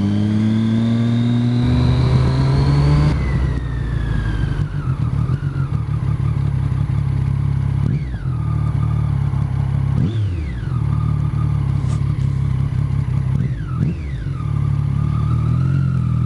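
Triumph motorcycle engine under acceleration, heard from the bike. Its pitch climbs over the first three seconds, then falls suddenly several times as the revs drop between pulls.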